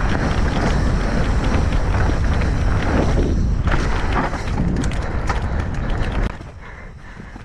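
Mountain bike riding down a rocky dirt trail: rumble and clatter of tyres and bike over rock and dirt, with wind buffeting the camera microphone. The noise drops off sharply about six seconds in, leaving a quieter rattle.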